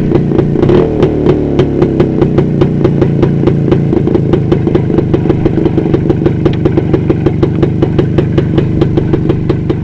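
1970 Jawa 559's 250 cc single-cylinder two-stroke engine idling close by, with an even beat of exhaust pops. It settles into the idle about a second in, just after the bike pulls up.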